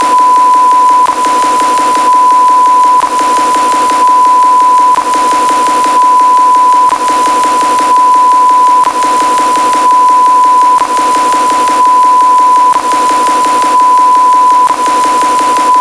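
A loud, steady electronic beep tone at about 1 kHz, held without a break, with a small click and a slight drop in loudness about every two seconds as it repeats.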